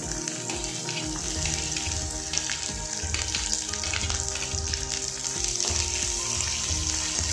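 Shallots sizzling in hot oil with garlic in a stone pot. The sizzle rises as they go in and stays loud.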